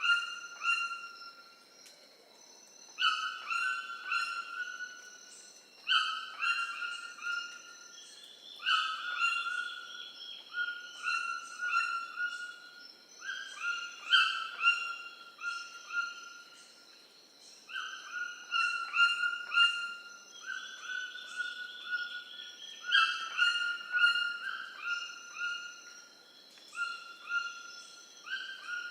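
A bird calling in repeated phrases, one every few seconds, each a quick run of short clear notes at two pitches. A steady high tone runs underneath.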